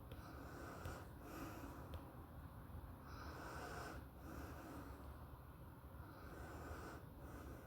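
A person breathing faintly and audibly in and out, roughly one breath sound a second.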